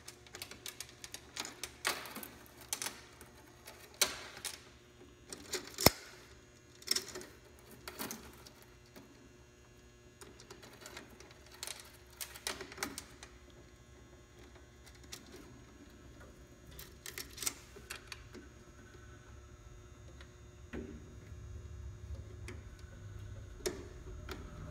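Steel roller chain and its master link clicking and clinking irregularly as they are handled and reconnected around the timing sprocket by hand. A low steady hum comes in near the end.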